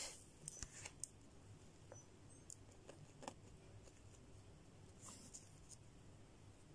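Near silence, with a few faint ticks and light scratches of a sharp pointed tool picking at glued sand on paper.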